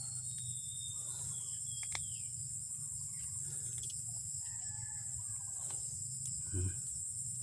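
Steady high-pitched chorus of crickets and other insects, with faint calls of a distant rooster crowing. About two-thirds of the way through there is a brief rustle and thump as a wild mushroom is plucked from the leaf litter.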